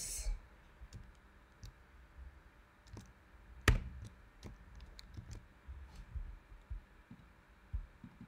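Faint, scattered clicks of a computer keyboard and mouse, with one sharper click a little under four seconds in.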